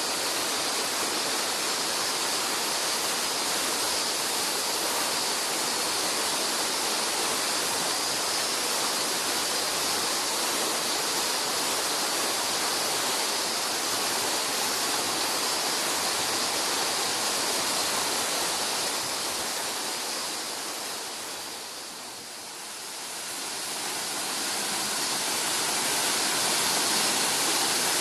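Waterfall's steady rush of falling water. The rush fades noticeably about three-quarters of the way through, then comes back up to full strength.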